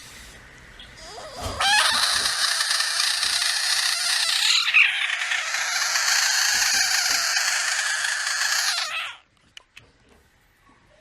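A frog screaming: one long, loud, high-pitched cry held for about seven and a half seconds. It starts about a second and a half in and cuts off suddenly near the end.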